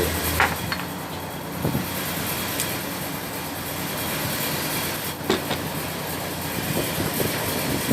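Steady mechanical rumble and hiss, like a vehicle or machinery running in the background, with a few short light clicks.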